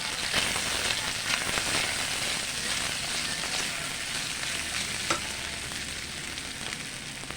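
Garlic sizzling in hot oil in a frying pan as it browns, with one sharp tap about five seconds in.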